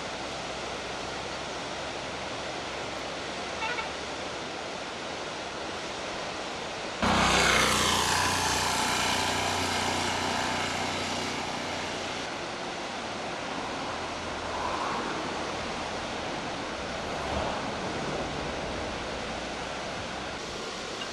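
Steady rushing noise with a low hum. It jumps abruptly louder about seven seconds in, then slowly eases back down.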